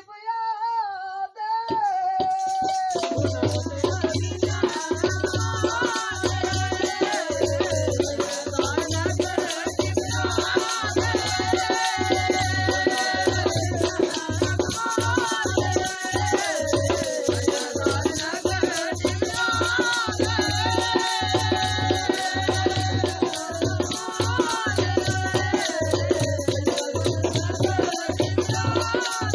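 Dogri folk music: a short gliding sung phrase, then about two seconds in a steady drum beat, rattling percussion and a wavering melody line come in and carry on as an instrumental passage.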